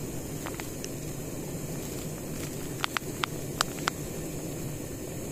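Steady hiss of a pot of water heating for tea, with a cluster of sharp crackles about three to four seconds in.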